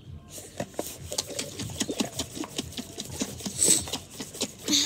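A lidded glass jar of liquid and flower petals being shaken by hand, its contents sloshing and knocking in quick, even strokes.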